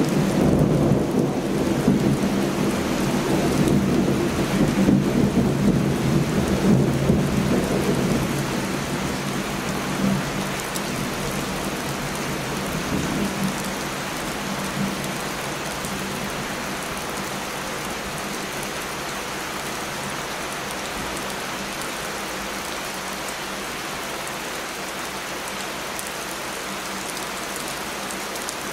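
Heavy rain falling steadily, with a long rumble of thunder that is loudest in the first several seconds and dies away by about halfway through.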